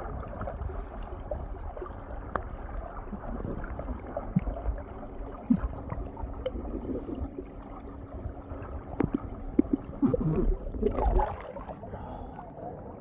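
Muffled underwater sound on a submerged phone microphone: low gurgling and rumbling with scattered soft knocks and clicks. A louder burst of splashing comes about ten to eleven seconds in, as the phone comes up out of the pool water.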